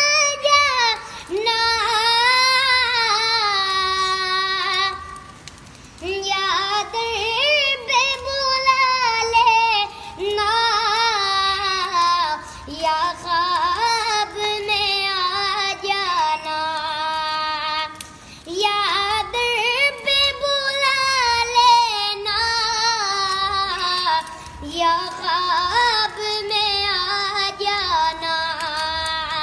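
A boy singing solo without accompaniment, in long drawn-out phrases with a wavering, ornamented melody, pausing briefly for breath between phrases.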